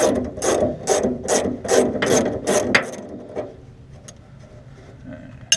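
Hand ratchet wrench worked in quick back-and-forth strokes, a little over two clicking strokes a second, loosening a sway bar end link nut; the strokes stop about three seconds in, and a single sharp click comes near the end.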